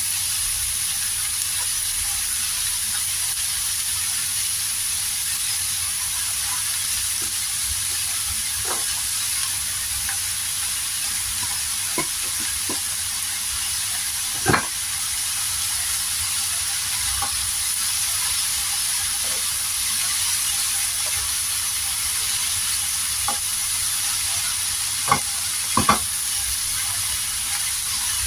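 Shredded vegetables sizzling steadily in oil in a stainless steel frying pan as they are stir-fried with a spatula. A few short clicks of the spatula against the pan stand out, the loudest about halfway through and two close together near the end.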